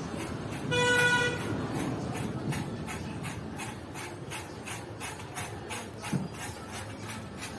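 Road traffic noise with one short vehicle horn toot about a second in, over a light ticking at about four a second. A brief low thud comes near the end.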